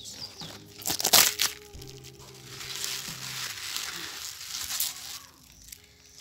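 Fresh collard green (sukuma wiki) leaves being handled: a few sharp snaps about a second in as they are pulled from their stems, then a few seconds of crisp rustling and crumpling as the leaves are bunched and rolled in the hands.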